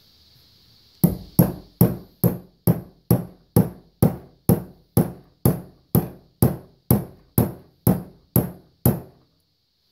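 Hammer blows on a punch, about eighteen at a steady pace of a little over two a second, each ringing briefly. They are driving a steel ball through a newly installed valve guide in a John Deere 3 HP hit-miss engine's cylinder head to size the guide.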